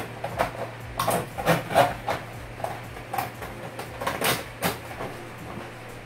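Irregular clicks and rustles of electrical wires being handled and spliced inside a plastic junction box, over a steady low hum.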